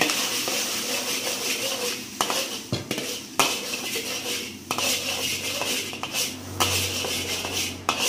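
A metal spatula scrapes and clanks repeatedly against a pan while egg and squid fry with a steady sizzle.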